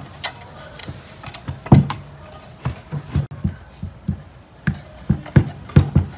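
Rusty steel band saw blade and metal parts of a dismantled Hitachi portable band saw being handled: scattered metallic clicks, scrapes and light clanks. The loudest knocks come about two seconds in and several more near the end.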